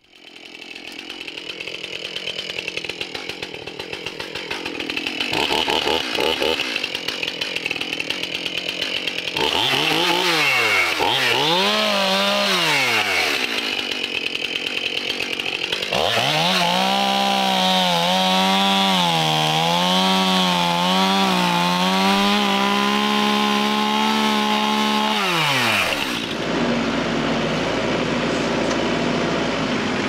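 Gas chainsaw revved up and down twice, then held at high throttle for about ten seconds while cutting through the base of a cedar trunk about ten inches thick. Its pitch wavers and dips as the chain bogs in the wood, and it drops away sharply near the end. A lower, steadier engine sound, the tractor, runs for the last few seconds.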